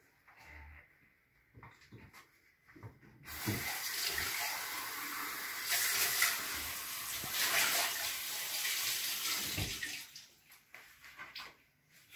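Water running from a tap: a steady rushing hiss that starts suddenly about three seconds in and stops near ten seconds. A few light knocks and clatters come before and after it.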